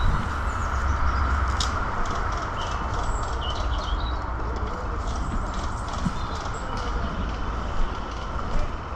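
Footsteps and the rustle of gear from a person walking, over a steady rumble of wind buffeting the microphone, with a few faint high chirps.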